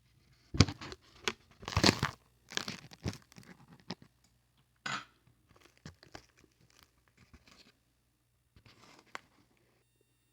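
Food packaging being handled, with crinkling and tearing noises in sharp bursts, loudest in the first three seconds, then lighter scattered rustles and clicks.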